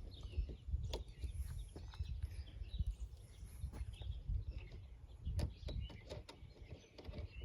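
Birds chirping in the background, with a few light clicks from small metal lock parts being handled as a washer is fitted onto the lock body.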